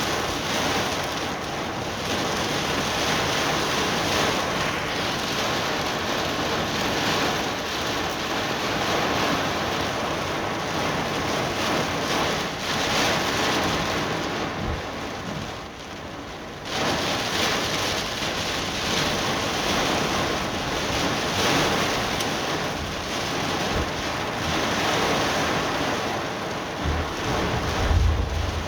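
Heavy rain pouring down as a steady hiss, with wind gusting across the microphone. The downpour dips briefly about halfway through, and a burst of low wind rumble comes near the end.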